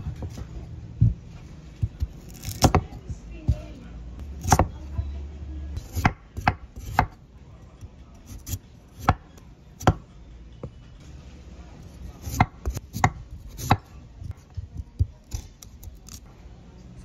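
Large kitchen knife peeling and cutting a raw sweet potato on a wooden cutting board: crisp cuts through the firm flesh and knocks of the blade on the board, at irregular intervals.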